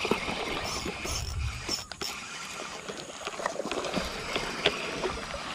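Seahawk Lite Pro spinning reel cranked to bring in a hooked snakehead, with scattered clicks and rod-handling noise.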